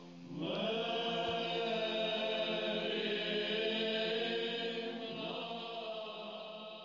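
Slow choral chant with long held notes. A new phrase begins just after the start, and the singing slowly fades out near the end.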